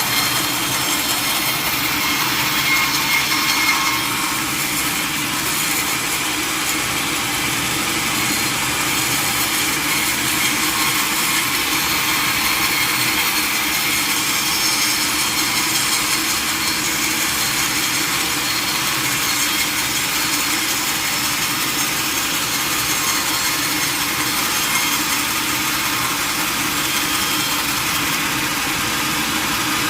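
Power saw running steadily as it cuts through a large mahogany log.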